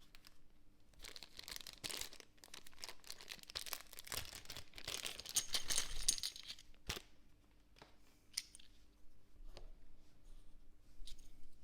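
Packaging being crinkled and torn open by hand: a dense crackling rustle for several seconds, then a sharp click and a few lighter handling clicks.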